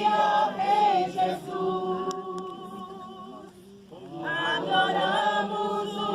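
A group of voices singing a hymn together, unaccompanied, with a short pause about four seconds in before the singing resumes.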